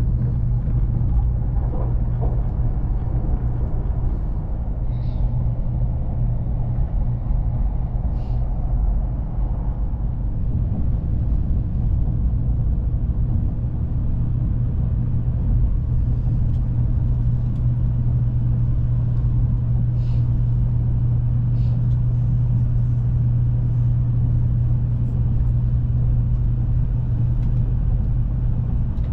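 Steady low rumble of a KTX-EUM high-speed train running, heard inside the passenger cabin, with a few faint light ticks.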